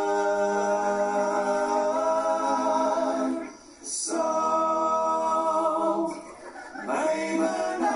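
Unaccompanied singing: long held notes in drawn-out phrases, with a brief break about three and a half seconds in and another about six seconds in.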